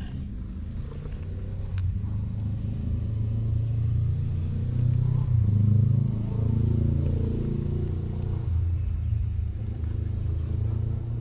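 A motor engine running at a distance, a low steady drone that grows louder towards the middle and eases off again near the end.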